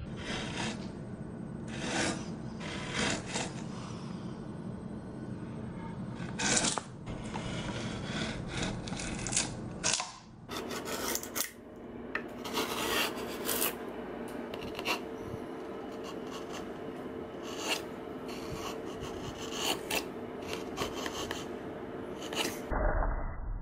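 Japanese chisel paring cedar: the blade scraping and rasping through the wood with irregular small crackles as a thin shaving curls up.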